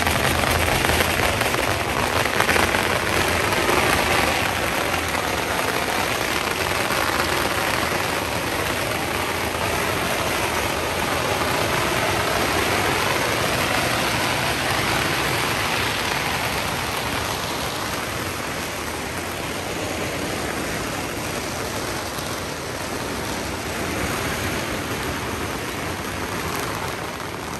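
Long strings of firecrackers going off in a dense, unbroken crackle.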